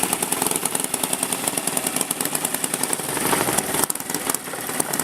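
Racing lawn mower engines running with a fast, rattly pulse, getting a little quieter about four seconds in.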